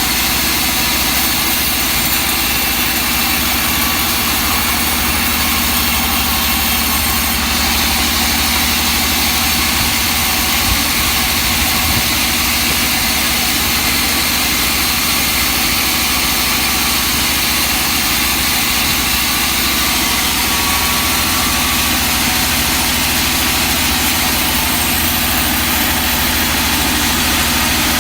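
Sawmill's engine-driven machinery running steadily at an even pitch.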